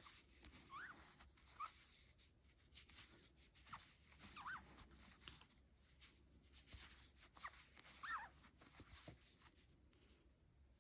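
Faint, short squeaks of cotton yarn rubbing against a metal crochet hook as stitches are worked, several scattered through, with soft ticks of handling.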